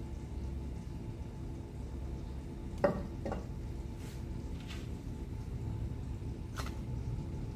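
Frying pan on a lit gas burner, heating a little oil. The burner gives a steady low rumble, and there are a few light knocks of the pan on the stove, the sharpest about three seconds in.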